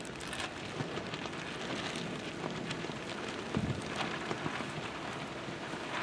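Strong wind blowing, with a fine crackling running through it and a low gusty thump about three and a half seconds in.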